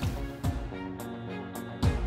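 Background music with a steady drum beat and held tones.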